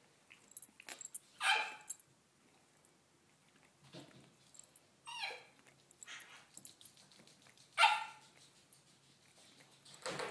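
A dog barking: three short, sharp barks a few seconds apart, the middle one dropping in pitch.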